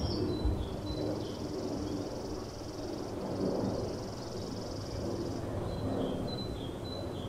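Outdoor garden ambience of small songbirds: short high chirps, and a high, rapid trill that starts about half a second in, breaks off briefly about three seconds in and stops about five and a half seconds in. A low, steady rumble runs underneath.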